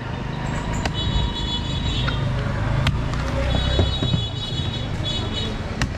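A big knife chopping into palmyra palm fruits, landing as a few sharp knocks about two seconds apart. Under it runs a steady rumble of street traffic, with a high beeping tone sounding twice.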